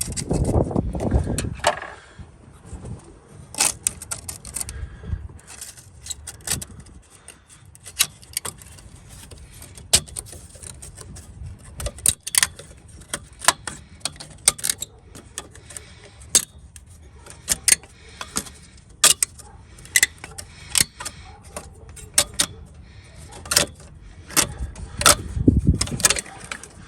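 Metal hand tools and engine parts being handled on a partly dismantled engine: scattered sharp metallic clicks and clinks, irregular throughout, with heavier handling knocks near the start and again near the end.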